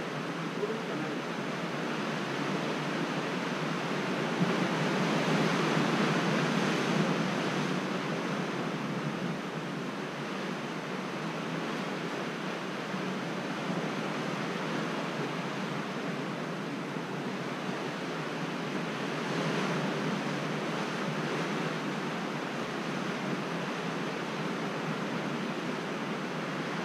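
Steady wash of ocean surf against a rocky shore, swelling and easing slowly.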